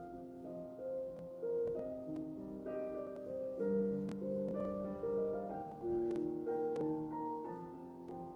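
Background piano music playing a slow melody of held notes.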